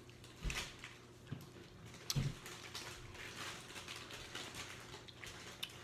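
A person eating taco salad with black bean corn tortilla chips: a few sharp crunches in the first two seconds, then steady crunchy chewing.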